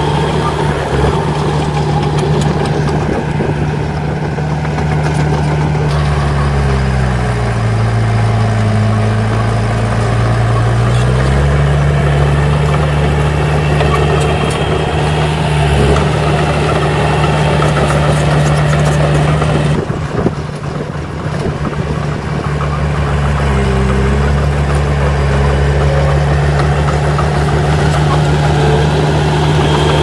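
Crawler bulldozer's diesel engine running hard close by. Its pitch sags for a few seconds about a third of the way in, then climbs back, with a brief dip again later.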